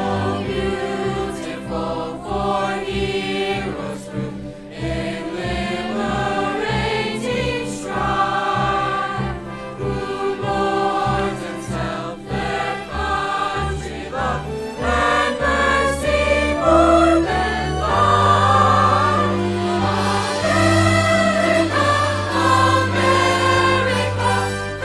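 School choir singing to an instrumental accompaniment track played through floor loudspeakers, the backing holding sustained low notes under the voices.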